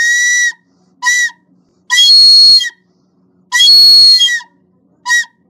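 Antique recorder blown hard close to the microphone: about five loud, breathy toots all on the same high note. Two of them are held nearly a second and the others are short.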